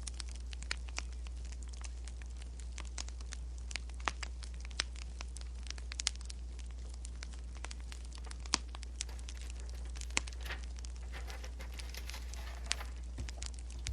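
Wood fire crackling: irregular sharp snaps and pops over a steady low hum, with a short stretch of softer rustling near the end.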